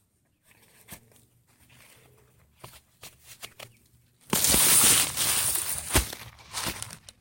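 Hands digging in soil and pulling up a dead potato plant: faint small scrapes at first, then loud scraping and rustling of earth and dry stalks from about four seconds in, with one sharp knock near six seconds.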